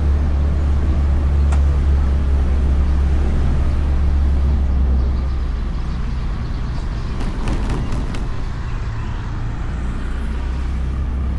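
Honda Beat scooter ride heard from a camera mounted on the bike: the single-cylinder engine and wind make a steady low drone that eases slightly about five seconds in, with a few light clicks later on.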